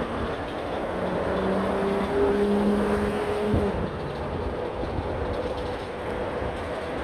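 City road traffic: a steady rush of vehicles on the street. A passing vehicle adds a steady low hum for a few seconds in the middle.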